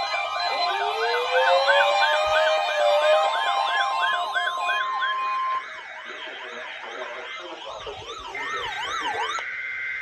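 Several electronic siren wails overlapping, with one slow wail rising and a steady tone held under them. About halfway through it drops to quieter wailing, and near the end a steady high two-note tone joins in.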